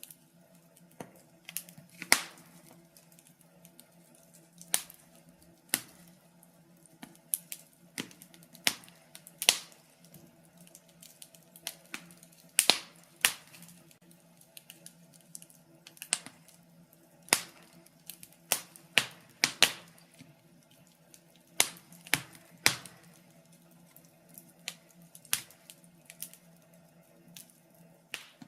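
Wood fire in a fireplace crackling: irregular sharp pops and snaps, a few louder ones every few seconds, over a faint steady low hum.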